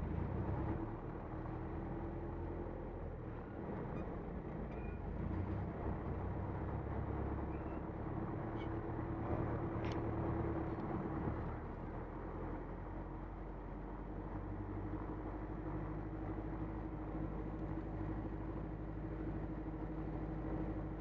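Engine and propeller of a Van's RV-4 light aircraft running steadily while the plane taxis on the ground.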